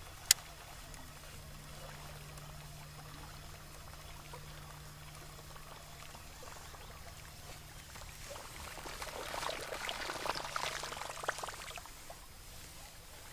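Steady low hum of a bow-mounted electric trolling motor that stops near the end, with a sharp click just after the start. Water splashes for a few seconds toward the end.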